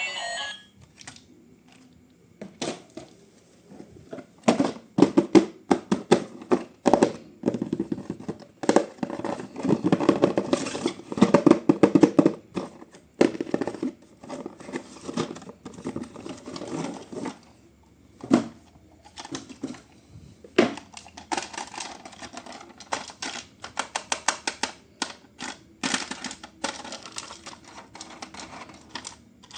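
Hands handling a plastic toy and its packaging: irregular clicks, rattles and crinkling that come in bursts, with short pauses about 2, 18 and 20 seconds in.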